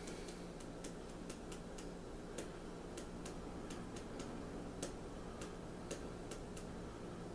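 Quiet, irregular ticks, a few a second, as a spice jar is tapped and shaken to sprinkle paprika into a plastic measuring spoon.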